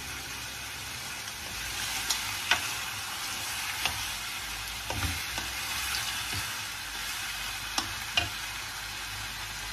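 Pork and chicken pieces sizzling as they brown in a nonstick pan, stirred with a wooden spoon that knocks against the pan now and then.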